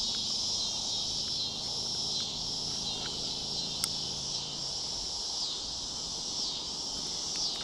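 Steady, high-pitched chorus of insects trilling without a break. A faint low hum underneath fades out about five seconds in, and there is a single light click about four seconds in.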